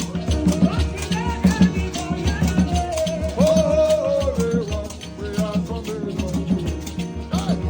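Gospel worship band playing between sung lines: steady percussion and bass with a gliding melody line over it.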